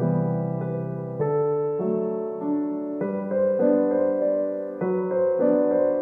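Background music: a piano piece with a new note or chord about every half second over held low notes.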